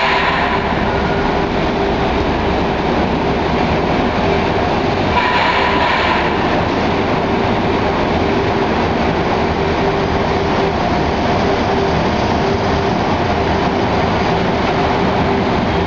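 Siemens-Duwag U2 light-rail cars rolling through a station: steady running noise with a constant hum, and two brief higher-pitched sounds, one at the very start and one about five seconds in.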